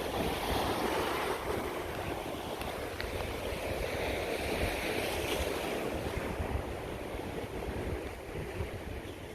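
Ocean surf washing onto the shore in a steady rush that swells and eases, a little softer in the last few seconds, with wind buffeting the microphone.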